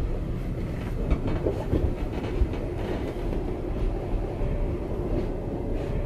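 Passenger train carriage rolling along the track as the train pulls away from a station, a steady low rumble with a few irregular wheel knocks over rail joints in the first half.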